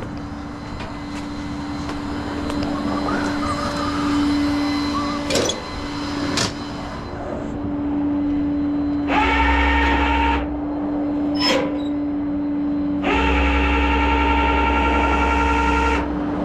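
Tow truck running with a steady hum. Its hydraulics engage twice, about nine seconds in and again about thirteen seconds in, each time with a whine as the engine takes the load; the second run lasts about three seconds.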